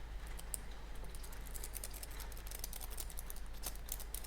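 Lock pick raking and wiggling in a six-pin KIK lock cylinder: quick, light metallic clicks and scrapes as the pick works over the pins, coming thicker from about a second and a half in.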